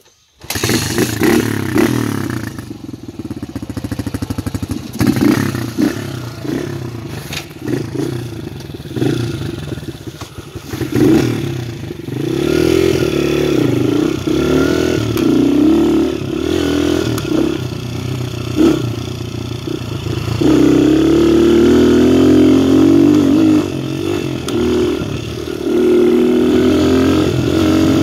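Viper 150cc dirt bike engine starting up suddenly right at the start, then running as the bike is ridden, its revs rising and falling with the throttle, with scattered knocks and rattles over bumps. It runs at its highest, steadiest revs for a few seconds about two thirds of the way through.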